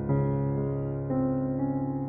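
Background music: slow piano chords held and ringing, with a new chord struck at the start and another about a second in.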